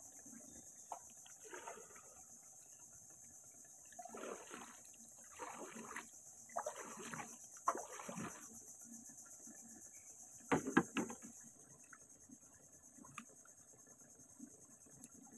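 Steady, faint, high-pitched insect chorus from the mangroves, with four short water splashes between about four and eight seconds in and a quick cluster of sharp knocks about ten and a half seconds in.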